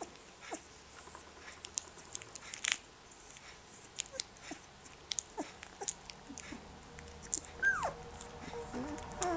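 18-day-old rough collie puppies mouthing and nibbling each other: small wet smacks and clicks of their mouths, with a short squeak that falls in pitch from one puppy about three-quarters of the way through.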